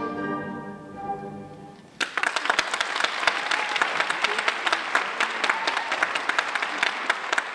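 Recorded orchestral music fading out, then about two seconds in an audience breaks suddenly into steady applause.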